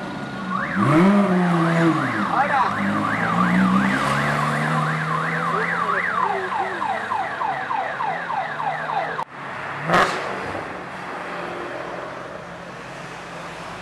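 A siren with a rapid up-and-down wail, about two to three sweeps a second, sounds over a Porsche 911 GT3 RS's flat-six engine revving and pulling away. About nine seconds in the sound cuts off abruptly. A single knock follows, then quieter street and crowd noise.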